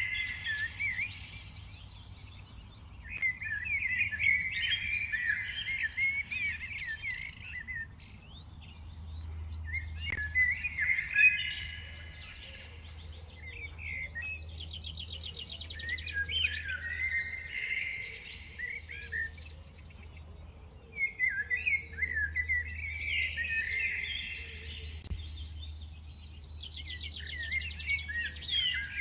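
Songbirds chirping and singing in bursts of several seconds, several calls overlapping, with fast trills mixed in and short lulls between bursts. A low steady hum runs underneath.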